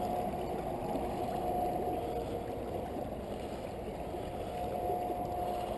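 Fast-flowing creek water rushing steadily around the legs of a person wading across in waders, with a thin steady tone that fades in and out.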